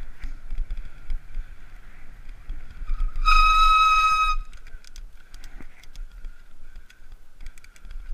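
A high-pitched warning tone about a second long, held steady with many overtones, sounded from the bicycle to alert the inline skater ahead on the path. A fainter steady whine and light ticking from the coasting bike run beneath it.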